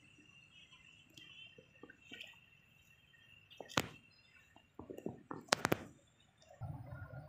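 Quiet outdoor ambience with a faint steady high tone, broken by a few sharp clicks and knocks, the loudest cluster a little after halfway through, and a low rumbling noise near the end.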